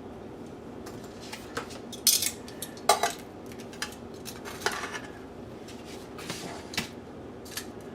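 Metal cookware and utensils clinking and knocking in a string of separate sharp strikes, the loudest about two, three and four and a half seconds in, over a steady low background noise.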